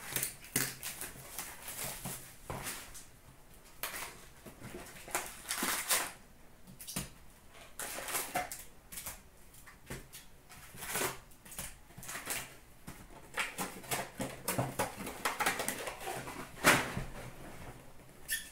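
Foil-wrapped trading card packs crinkling and a cardboard hobby box being opened and handled, as a string of irregular short rustles.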